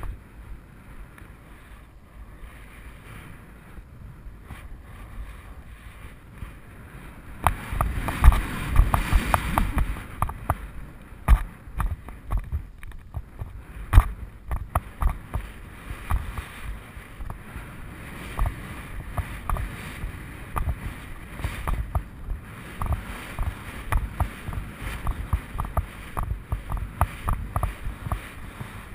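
Horse's hoofbeats thudding on turf in a regular rhythm, with wind on the microphone. The thumps and wind are loudest for a couple of seconds about eight seconds in.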